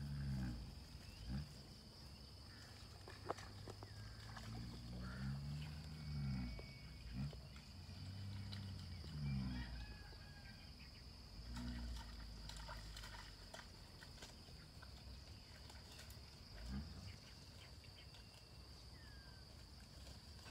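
Low, pitched animal calls at irregular intervals, some in runs of several, over a steady high whine and a few faint chirps.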